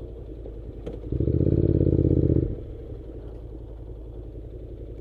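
Honda NC700's parallel-twin engine idling with an even pulse, briefly revved and held higher for about a second and a half from about a second in, then settling back to idle.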